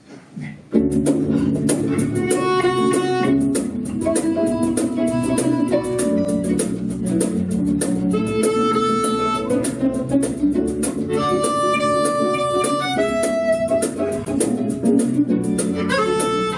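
A live acoustic band starts a song's instrumental intro suddenly, about a second in: rhythmic strummed guitar with a melody line played over it.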